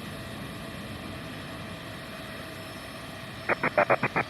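Steady jet engine noise with a faint whine. About three and a half seconds in, a quick run of sharp clicks starts, about seven or eight a second.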